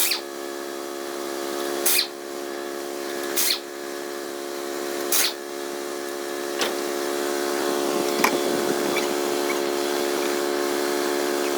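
Electric drill motor running steadily with a high whine, with a short sharp scrape about every one and a half seconds during the first eight seconds.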